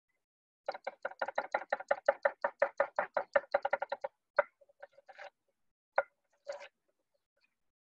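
Knife working a lemongrass stalk on a cutting board: a quick run of strikes, about six or seven a second for some three seconds, then a few single knocks.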